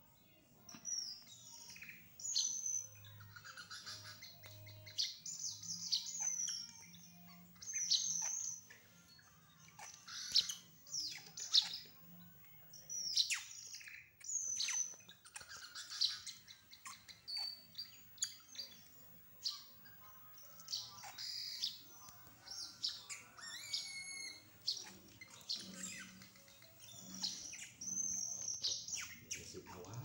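Bird chirping: many short, sharp, high calls, a lot of them falling in pitch, repeated with brief gaps, over a faint low hum.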